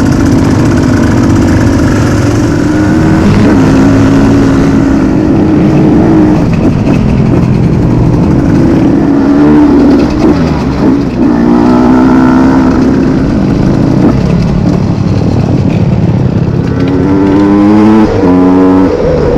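Enduro motorcycle engine running under load, its pitch rising and falling as the throttle opens and closes, with quick stepwise climbs in revs about two-thirds of the way through and near the end.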